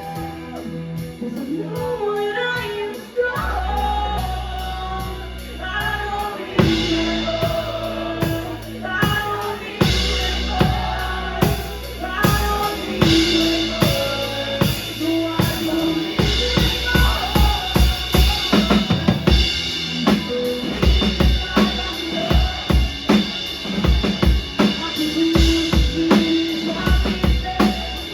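Rock band playing live, drum kit to the fore; the drums settle into a fast, steady beat about halfway through.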